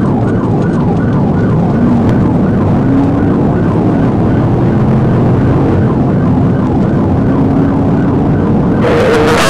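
Police cruiser siren on a fast yelp, about three cycles a second, heard from inside the car over steady engine and road noise. A louder noisy burst comes at the very end.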